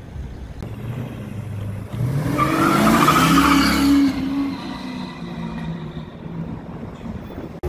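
Red C3 Chevrolet Corvette's V8 accelerating hard, loudest for about two seconds with a harsh rasp over the engine note, then easing off as the car pulls away.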